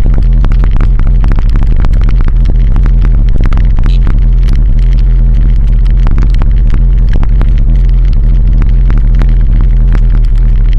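A vehicle driving along a concrete road, heard through a mounted action camera: a loud, steady low rumble with an engine drone underneath and many rattling knocks from the bumps in the road.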